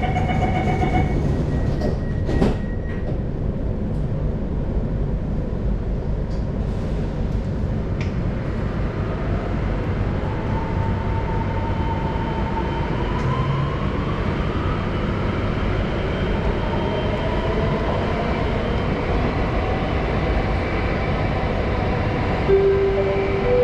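Steady rumble of a subway train in motion, heard inside the car. Partway through, an electric motor whine rises in pitch as the train picks up speed. There is a single knock a couple of seconds in, and a short chime near the end.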